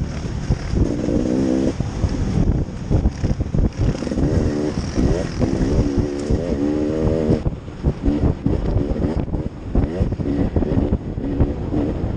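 A vehicle engine running under load, its pitch rising and falling repeatedly as it is throttled up and down, over constant wind buffeting on the microphone.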